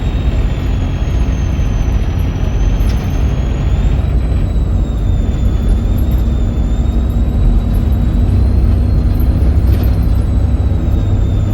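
Volvo B7RLE bus's six-cylinder diesel engine running under way, a steady low rumble with a high, slightly wavering turbocharger whistle over it.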